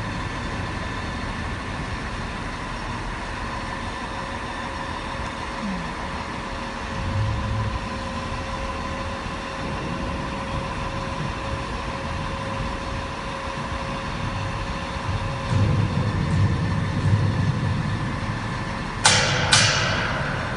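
Crane truck's engine running steadily with a faint steady whine, growing louder and heavier about three-quarters of the way through as it works the hoist. Near the end there are two sharp sounds about half a second apart.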